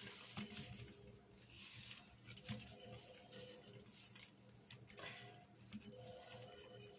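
Rubber-gloved hand squeezing a sponge packed with damp powdered detergent: faint crackling, crunching squish in several short bursts as the powder is pressed out.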